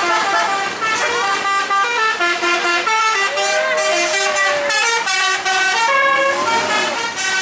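Bus basuri telolet horn playing a melody: a run of stepped horn notes, several sounding together, with a few notes sliding up and down partway through.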